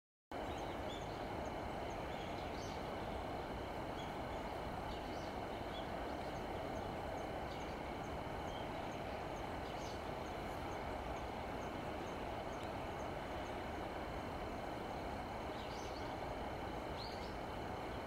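Steady outdoor background noise like distant traffic, starting abruptly a moment in, with faint scattered high wild-bird chirps and a faint high note repeating at regular intervals.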